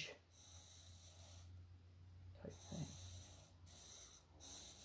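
Faint breathing, a few soft breaths of about a second each, over a low steady hum.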